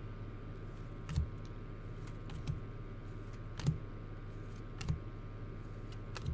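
Five light clicks, evenly spaced about a second and a quarter apart, over a steady low electrical hum.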